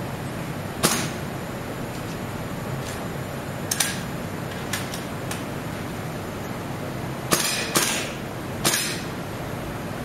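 Rifle shots: five sharp reports at irregular intervals, two of them close together about three-quarters of the way through, with a few fainter clicks in between, over a steady background hiss.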